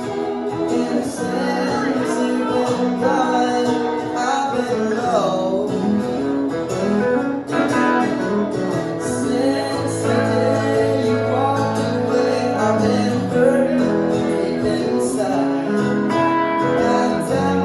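Live country music from a duo: strummed acoustic guitar with a bending melodic line over it.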